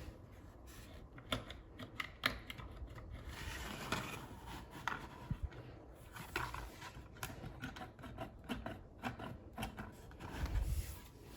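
A hand-worked toy mock-up with gears, rack-and-pinion and a spring-loaded slot-and-pin tongue: scattered clicks, taps and scrapes as its parts are moved. Near the end there is a louder low rumble of handling.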